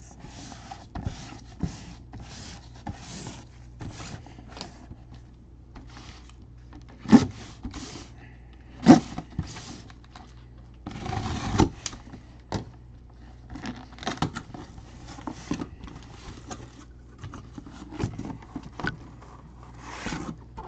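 A cardboard box being opened and handled: repeated scraping and rustling of cardboard flaps, with two sharp knocks partway through and a longer scrape a little past the middle.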